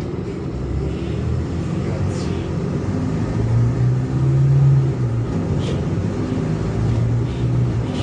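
Bus engine and road noise heard from inside a moving city bus: a steady low drone whose engine note swells about halfway through and again near the end.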